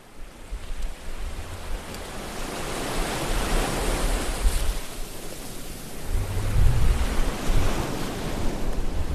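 Wind rushing over a microphone: a steady hiss that fades in, swells and eases, with heavy low rumbling buffets about six seconds in.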